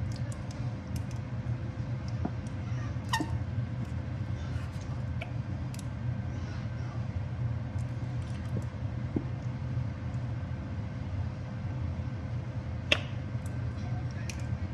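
A steady low mechanical hum, like a kitchen fan or appliance, with a couple of sharp plastic clicks from a ketchup squeeze bottle being opened and handled, about three seconds in and again near the end.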